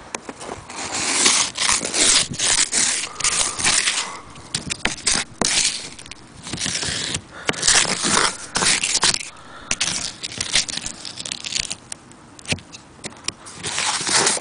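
Snow being swept off a car windscreen in quick, irregular scraping strokes, with a few short pauses between runs.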